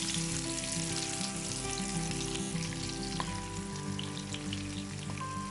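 Coconut frying in hot ghee, sizzling steadily. The sizzle eases off a little in the second half.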